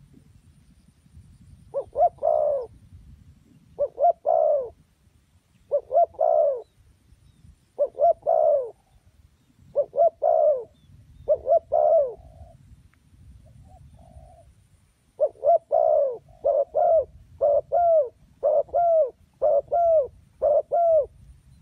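Spotted dove cooing, the lure call of a decoy bird. Low, soft phrases come about every two seconds, break off briefly, then follow in a quicker run of shorter coos close together for the last six seconds.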